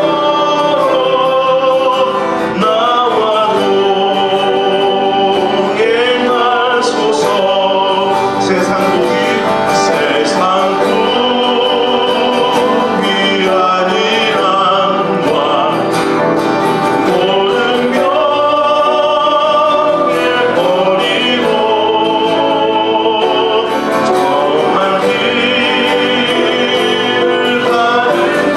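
A man singing a Korean gospel hymn with his own acoustic guitar accompaniment.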